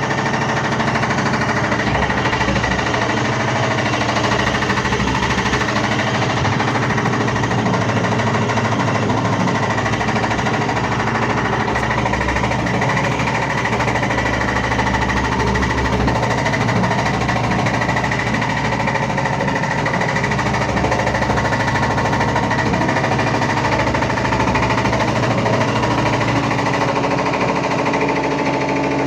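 Samsung washing machine spinning with a badly unbalanced load: a loud, steady roar over a low hum, with the drum knocking rapidly and the whole machine shaking hard.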